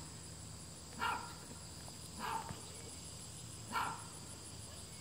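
A dog barking, single short barks about every second and a half, over a steady high-pitched insect chorus.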